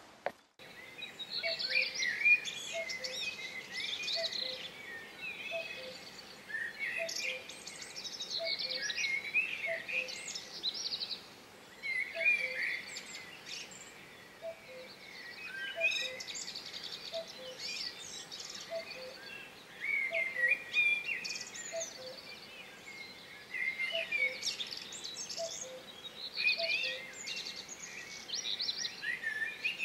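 Songbirds singing, short warbling phrases every few seconds, over a lower two-note bird call repeating about once a second.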